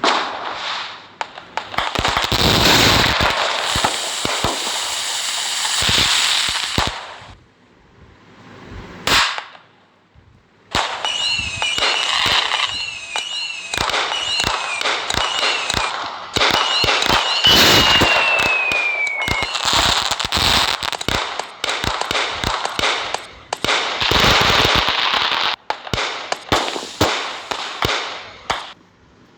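Diwali firecrackers going off in dense, rapid strings of pops and crackles. About a third of the way in there is a lull of a few seconds. Then a run of short falling whistles sounds over the crackle, ending in one longer falling whistle, before the popping carries on.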